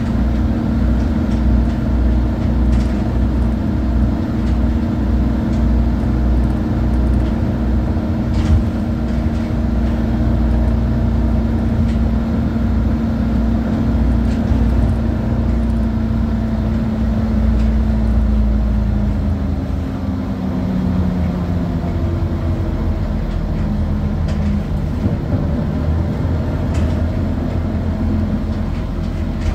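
Interior of a moving ZAZ city bus: the engine and drivetrain running steadily with low road rumble, the engine note falling and easing off about two-thirds of the way through. One short knock about a third of the way in.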